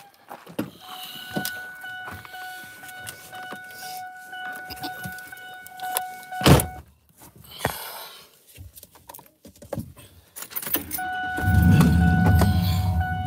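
Pickup truck being boarded: keys jangle and a steady warning tone sounds while the door stands open, then the door shuts with a loud thump about six and a half seconds in. Near the end the tone sounds again and the engine starts and runs with a low rumble.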